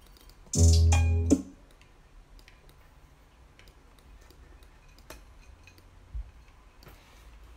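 A short burst of music, a pitched sound with heavy bass, plays through studio monitors for under a second about half a second in, as a sound is auditioned in the beat-making software. Faint mouse and keyboard clicks follow, with a brief low thump about six seconds in.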